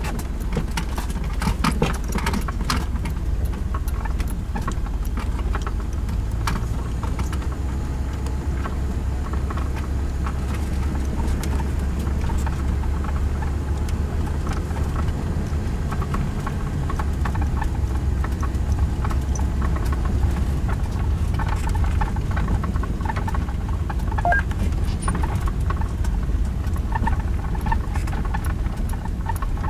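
A vehicle's engine running low and steady at crawling speed, heard from inside the cab, with frequent light clicks and rattles as it rolls along a dirt track.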